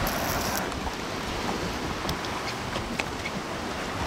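Wind on the microphone and small waves washing on a shallow, rocky shore. There is a short hiss at the very start and a few faint clicks about two to three seconds in.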